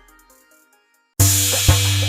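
Background music: one track fades out, a moment of silence follows, and a new track cuts in abruptly just past the middle with a strong bass and a drum beat.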